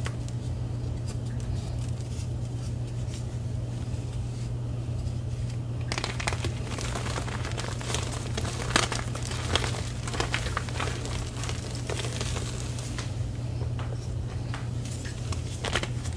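Reformed gym chalk crumbled and squeezed in bare hands: soft, powdery crunching and crackling, faint at first and dense from about six seconds in. A steady low hum runs underneath.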